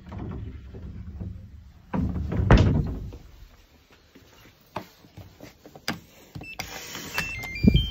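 A front door being opened and pulled shut: handling rustle, a loud knock about two seconds in, a few sharp latch clicks, a short tune of electronic beeps, and a thump as the door shuts near the end.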